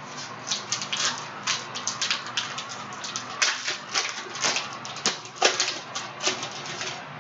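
Foil wrapper of a Prizm retail card pack being crinkled and torn open by hand: a run of irregular, sharp crackles.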